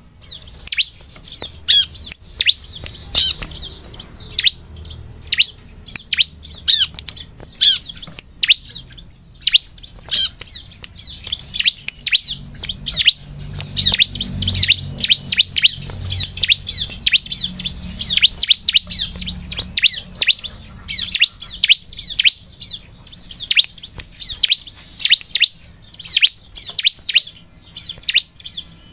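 Bar-winged prinia (ciblek) singing: quick runs of sharp, high chirps, each falling in pitch, broken by short pauses, with scattered sharp clicks between them.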